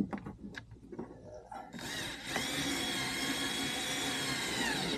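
A few light clicks and knocks of handling, then a small electric drill starts about two seconds in, speeds up, runs steadily, and winds down as it stops near the end.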